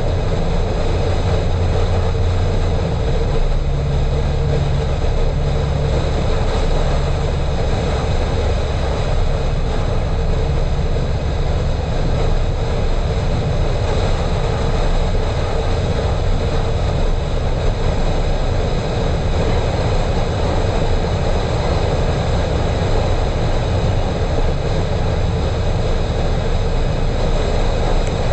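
Steady road noise of a car cruising at speed: tyre roar on asphalt and wind rush over a low engine drone, unchanging throughout.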